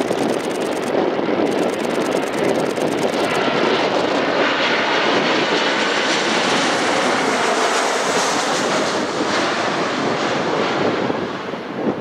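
Embraer E190 airliner's two GE CF34 turbofan engines passing low overhead on final approach: a loud jet rush that builds, is strongest and brightest about halfway through, then fades as the aircraft moves away.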